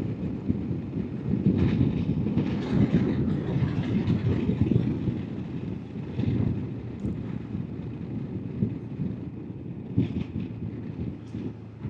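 Royal Enfield Himalayan's single-cylinder engine running while under way, with wind noise on the microphone.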